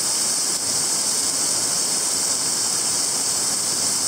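Rain-fed waterfalls pouring into the lake, a steady rushing hiss with no change.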